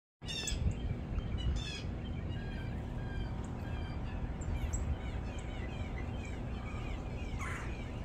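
Several wild songbirds singing and chirping at once in a spring backyard chorus, many short whistled notes overlapping, with one short noisy call near the end. A steady low rumble runs underneath.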